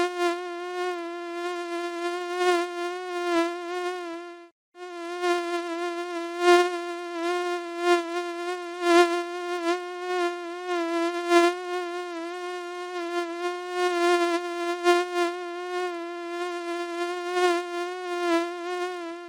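Mosquito in flight: a steady, high, slightly wavering whine from its beating wings. It cuts out for about half a second a little over four seconds in, then resumes.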